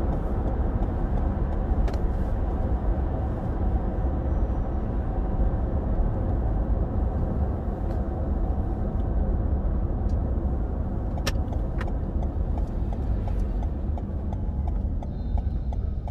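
Steady road and engine noise of a moving car heard from inside the cabin, a low rumble that gets slightly quieter near the end.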